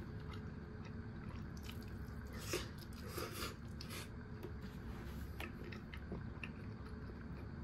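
Close-up chewing of a mouthful of curry rice, with soft wet mouth clicks and a denser run of them about two and a half seconds in, over a steady low room hum.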